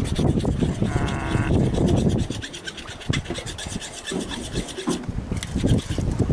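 Irregular rubbing and scraping close to the microphone, with scattered dull knocks.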